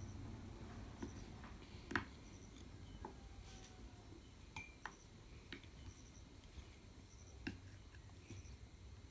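Quiet eating sounds: soft chewing and mouth clicks, with light, irregular clicks of wooden chopsticks working through noodles on a plate. The sharpest click comes about two seconds in.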